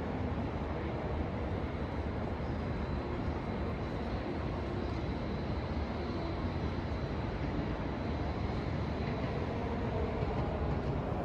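Steady noise of a train at a railway station, with a faint high whine in the middle.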